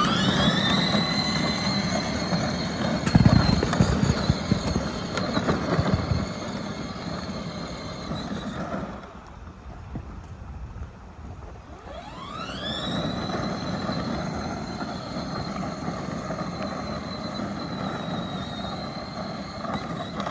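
Electric drive motors of a child's ride-on side-by-side whining, rising quickly in pitch as it pulls away and then holding a steady high whine. It stops for a few seconds and starts again the same way, with low knocks and bumps from the rough ground in the first run.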